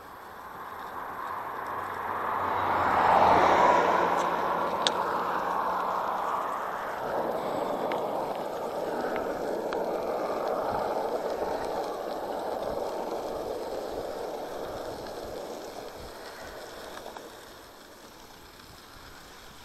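Tyre and wind rush of a bicycle riding along a gravel road shoulder. It swells to its loudest about three seconds in, holds steady, and fades near the end, with a single sharp click just before five seconds.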